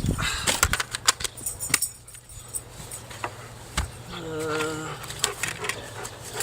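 Clicks and clattering from a cordless tool battery and tools being handled, with a brief wavering dog whine a little after four seconds in.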